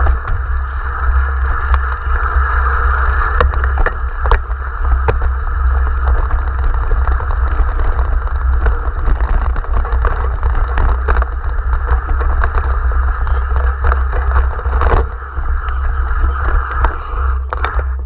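Wind buffeting the microphone of a camera riding down a rocky mountain bike trail: a steady low rumble with rushing tyre noise, broken by many sharp clicks and knocks as the bike rattles over stones.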